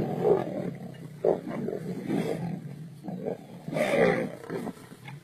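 Lions growling in a string of rough, harsh bursts, loudest about four seconds in.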